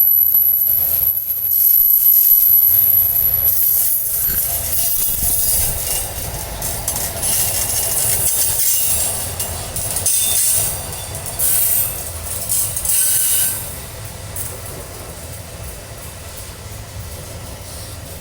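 Wood-carrying freight train rolling slowly past: a low rumble of wagon wheels on the rails, with bursts of high-pitched wheel screech. It grows quieter over the last few seconds.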